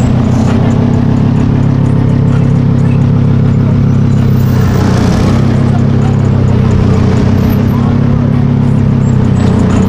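Car engine idling steadily, a low even drone that holds the same pitch and level throughout.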